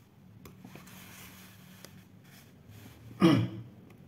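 Low room tone with a faint steady electrical hum and a few faint clicks, then about three seconds in a short loud burst of breath or throat noise from the narrator, like a sniff or snort.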